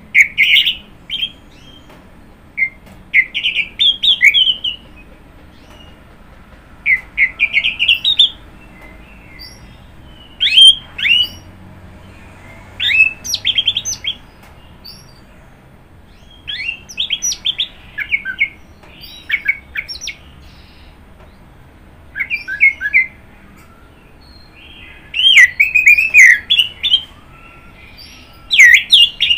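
Orange-headed thrush (anis merah) singing: about ten short bursts of rapid, varied whistled notes, each lasting a second or so, with pauses of one to three seconds between them.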